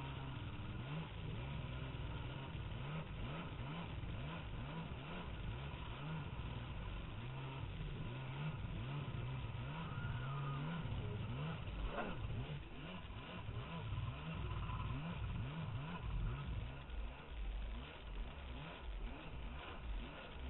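Personal watercraft engine running at speed, its pitch rising and falling as the throttle is worked over the waves, with water rushing and spraying around the hull.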